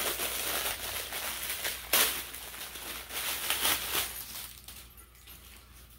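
Packaging crinkling and rustling as a fabric cat carrier bag is unwrapped by hand, with one sharp crackle about two seconds in; it dies away after about four and a half seconds.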